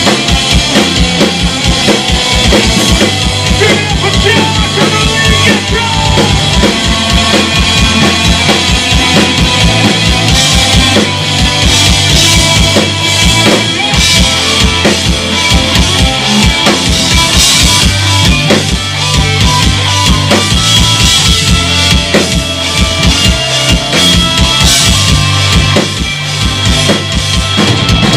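Loud live rock band: a drum kit drives a busy, fast bass-drum and snare pattern under bass guitar and electric guitar.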